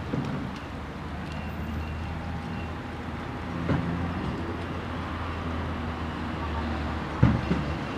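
Steady low background rumble, with two short knocks: one about four seconds in and a louder one near the end.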